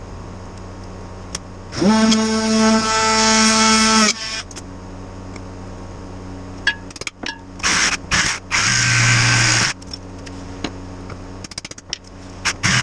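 Time-lapse sound of power tools cutting a foam-filled tire off its wheel. A tool motor runs steadily for about two seconds, then clicks and knocks follow. A shorter, noisier burst of cutting comes near the end.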